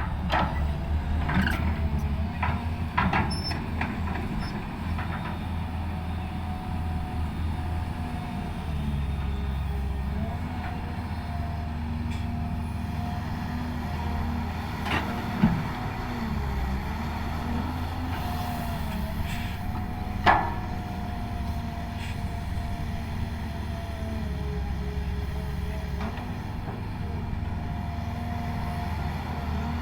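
Heavy construction equipment's diesel engine running steadily, its note dipping and rising a little with load, with scattered metal clanks and knocks; the two loudest clanks come about fifteen and twenty seconds in.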